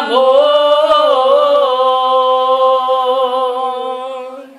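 Women singing a cappella, holding one long final note of a Spanish worship song; the note wavers slightly at first, then steadies and fades out near the end.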